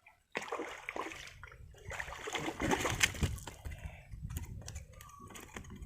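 Water splashing and sloshing while a large baung catfish is handled and lifted out of it. It starts suddenly about a third of a second in, with scattered knocks, and is loudest about halfway through.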